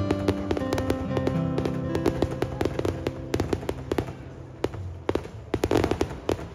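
Aerial fireworks bursting and crackling in quick succession, many sharp cracks and bangs, with music playing over them.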